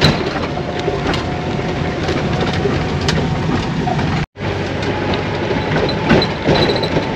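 A vehicle being driven along, heard from inside: a steady low engine and road rumble with some rattling. The sound drops out abruptly for a split second a little over four seconds in.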